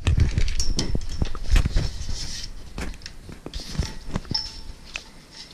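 Handling noise close to the microphone: a run of knocks, clicks and low thumps as equipment is fumbled with, busiest in the first two seconds and thinning out toward the end.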